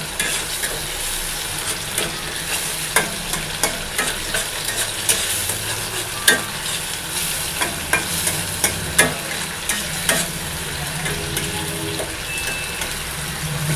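Onion paste sizzling steadily in hot oil in a kadai while it is stirred, the stirring utensil scraping and tapping against the pan in frequent sharp clicks. The paste is being fried until it turns reddish-brown.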